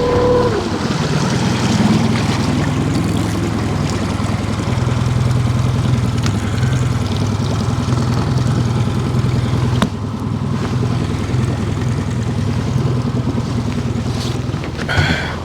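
Boat motor running: a steady higher whine drops away about half a second in as it is throttled back, then it idles with a steady low hum under a rushing hiss. There is a sharp click about ten seconds in.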